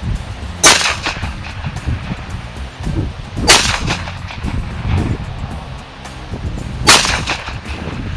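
Three pistol shots from a Taurus TCP .380 ACP pocket pistol firing Fiocchi 90-grain jacketed hollow points, about three seconds apart, each a sharp crack with a brief ring-out.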